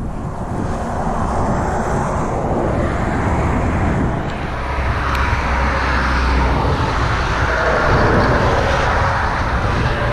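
Steady road traffic noise from cars crossing the bridge, with a deeper rumble for a couple of seconds about halfway through.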